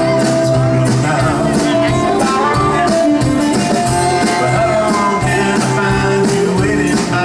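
Live rock band playing a song with a steady beat: acoustic and electric guitars, bass, keyboard and drums.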